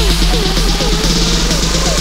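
Future house electronic dance music: a steady deep sub-bass under a held low tone, with short falling synth notes repeating through it.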